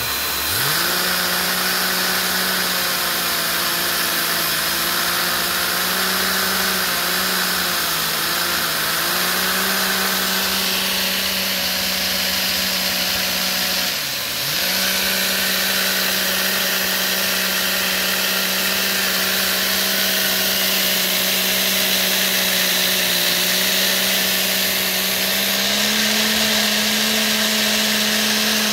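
Vacuum-driven Lego single-piston engine with a 3D-printed roots-style supercharger running at high revs: a steady buzzing hum over the rush of the vacuum's suction. Its pitch climbs quickly at the start, sags briefly about halfway and picks back up, and rises a little near the end as it is revved.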